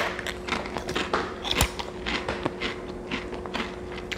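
Potato chips being bitten and chewed: irregular crisp crunches spread through, over a faint steady hum.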